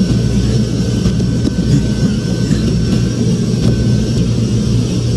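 Jet airliner engines running steadily: a continuous low rumble with a thin, high, even whine over it, and a few faint clanks.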